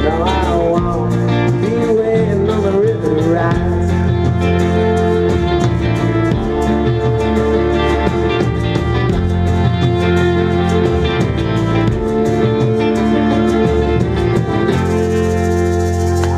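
Live band playing the instrumental close of a folk-rock song, guitars over bass and drums, with no singing.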